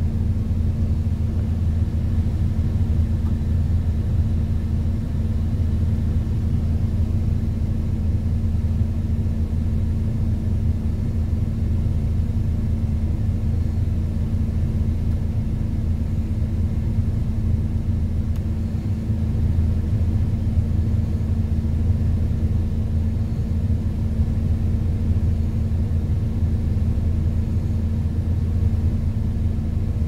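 Heavy diesel truck engine running steadily, a low even rumble that does not change.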